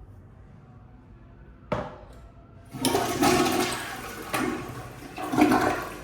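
A sharp click, then a restroom fixture flushing: water rushes in about three seconds in and surges in waves before dying down near the end.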